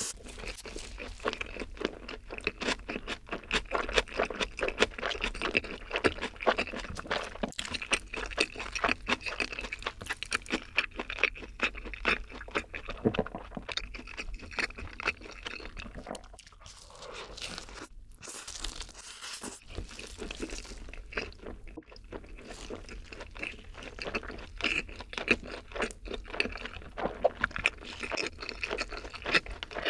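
Close-miked chewing of a mouthful of burger dipped in cheese sauce: quick, wet crunches and smacks, with a short lull a little past halfway.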